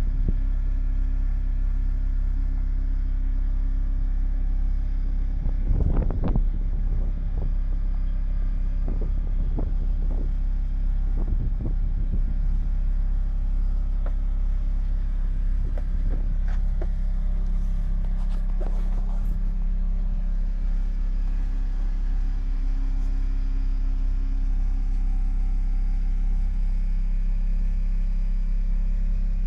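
Boat engine running steadily, a low, even rumble. A few brief knocks and rustles come through about six seconds in and again between about sixteen and nineteen seconds.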